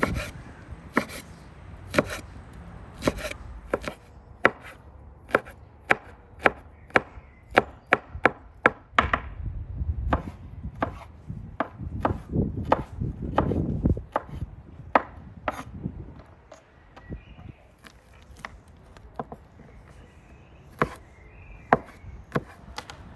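Steel cleaver chopping garlic cloves on a wooden cutting board: a run of sharp, irregular knocks as the blade strikes the board, quickest in the middle and sparser near the end.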